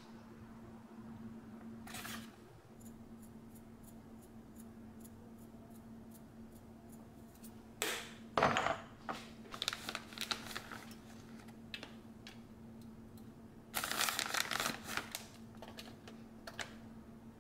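Quiet kitchen handling noises while shredded mozzarella is scattered by hand: light scattered ticks, then louder crackly rustling twice, about eight and fourteen seconds in, with a steady low hum underneath.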